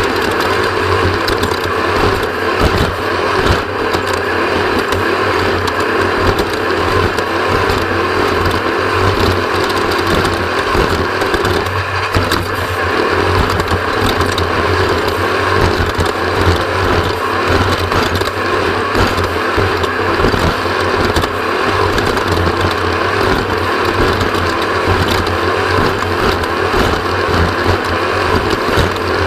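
Onboard sound of an off-road race vehicle at speed over rough desert terrain: a steady engine drone under constant rattling and knocking from the chassis and bumps.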